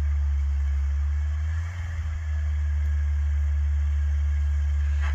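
Pickup truck with a snowplow blade idling: a steady low engine rumble that dips briefly about two seconds in.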